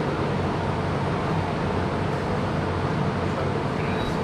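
Steady background rumble and hiss, unchanging throughout.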